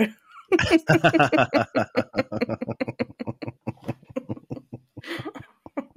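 Hearty laughter: a quick run of short laughs that slows and fades over a few seconds, with a breathy giggle near the end.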